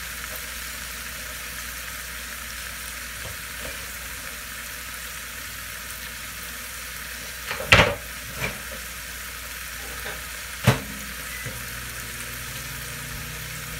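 Bean sprouts and vegetables sautéing in an oiled skillet, a steady sizzle. A few sharp knocks cut through it, the loudest about halfway through and another shortly after.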